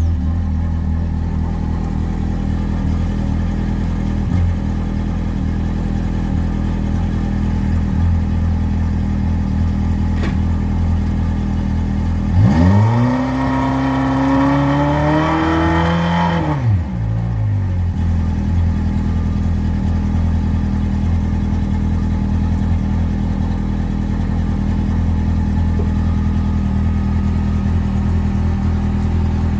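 Evinrude E-TEC 115 HO two-stroke direct-injection outboard motor idling steadily. About halfway through it is revved once for a few seconds, the pitch rising and then falling back to idle.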